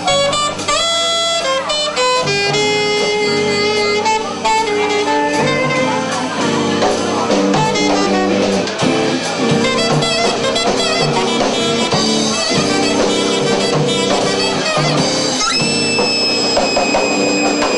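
Live rock band playing an instrumental stretch: a saxophone plays a lead line over electric guitar and drums. Near the end a high note is held.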